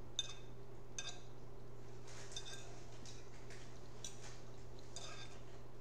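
A person eating a forkful of taco casserole: close-up chewing and mouth clicks with light clinks of a fork on a plate. These come as a handful of short, sharp sounds about a second apart over a steady low hum.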